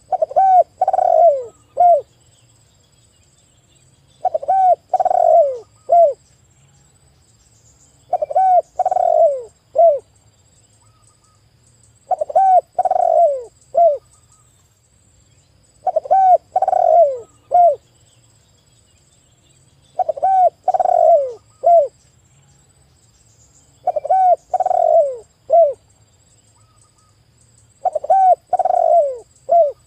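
Spotted dove (tekukur) singing its cooing song: a phrase of several low coos, repeated about every four seconds.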